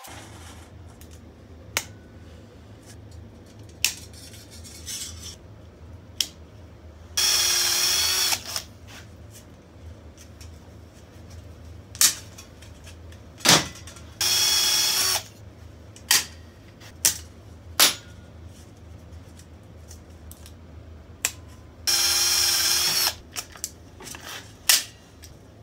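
Handheld drill boring holes through a thin stainless steel band, run in three short bursts of about a second each with a steady whine. Sharp metallic clicks and knocks come between the bursts as the band and tool are handled.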